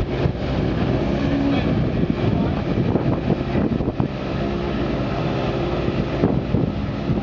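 A Mini's engine idling, a steady running note with slight wavers in pitch.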